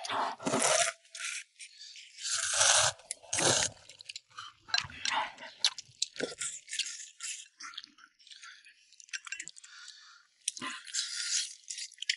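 Close-up eating sounds of a bowl of pig's-trotter noodles: noisy slurps and chewing in irregular bursts, the longest about two to three seconds in, with scattered sharp clicks.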